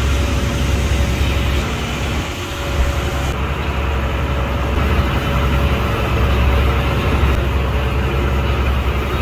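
Fishing boat's engine running steadily at sea, a loud low rumble.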